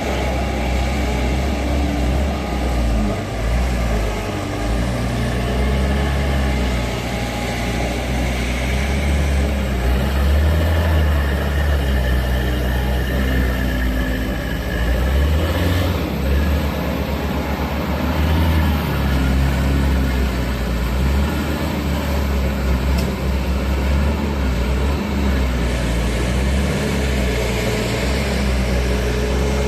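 JC65 compact skid steer loader's diesel engine running throughout, its low note rising and falling in speed and level.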